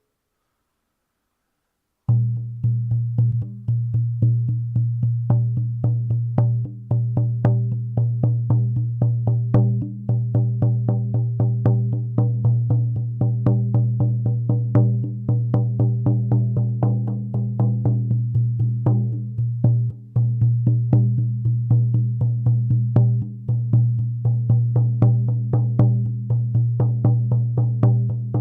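Buffalo-hide resonator shamanic frame drum beaten in a steady, even rhythm, each stroke giving a deep ringing tone. It starts about two seconds in, and the hide is fairly tight.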